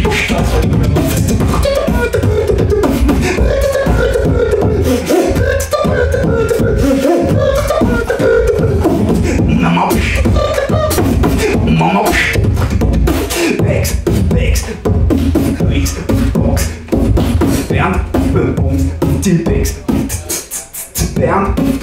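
Solo nose beatboxing: a fast stream of clicks and beat sounds with a hummed, wavering melody over it. The beat breaks into short gaps near the end.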